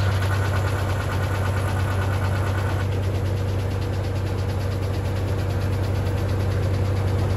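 Straight-piped Farmall Super M four-cylinder engine running steadily at working speed with an even exhaust beat, driving the sawmill with the saw out of the cut. A faint steady whine sits underneath.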